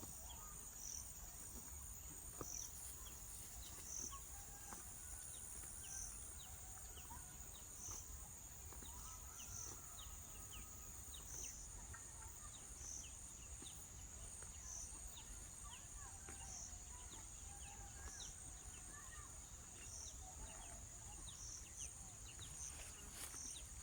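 Faint natural ambience: a steady high insect drone with a short pulse every second or two, and many brief, faint chirps scattered throughout.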